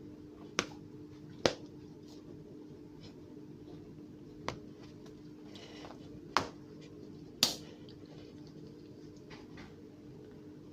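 Five sharp clicks or taps, unevenly spaced, over a steady low hum.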